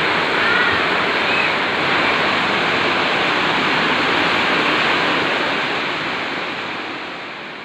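Steady rushing water noise, fading out over the last few seconds.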